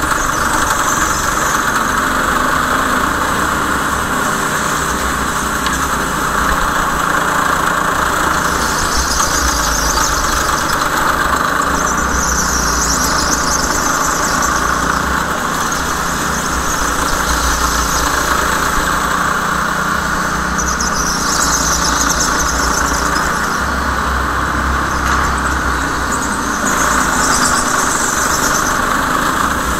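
Racing go-kart running at speed, a steady drone throughout, with its tyres squealing in about five separate bursts of a second or two as it goes through corners.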